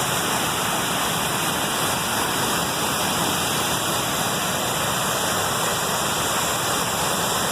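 Waterfall in heavy flow after a night of hard rain: a steady, even rush of falling water.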